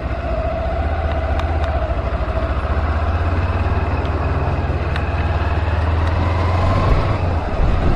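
Kawasaki Z250's parallel-twin engine running with a steady low drone as the motorcycle rolls slowly through town traffic, heard from the rider's seat.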